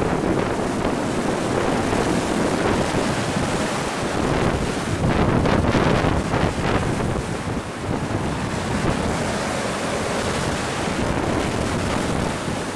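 Storm-surge waves crashing over a sea wall and surging across a flooded seafront road, under gale-force wind buffeting the microphone. The rush of water grows louder for a couple of seconds around the middle.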